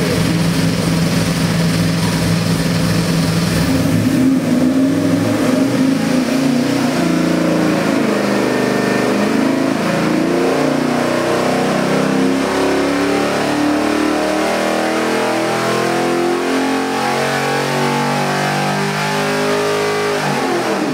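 441-cubic-inch LSx V8 crate engine with Holley EFI running on an engine dynamometer. It idles for the first few seconds, then pulls a loaded RPM sweep that climbs steadily to a little over 6,000 rpm at about 715 hp, and drops off right at the end as the run finishes.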